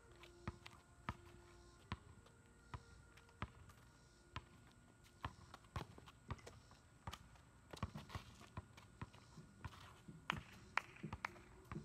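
A basketball bouncing on a paved driveway during play: faint, irregular knocks about once or twice a second, a little denser and louder near the end.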